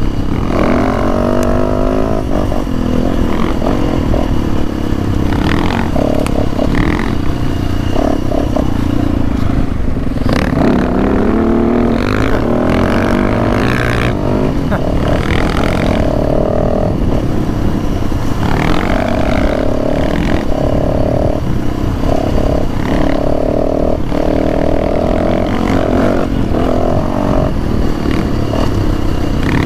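Dirt bike engine heard from on the bike, revving up with rising pitch about a second in and again around ten seconds in, and running at a steadier pitch between, with wind noise over the microphone.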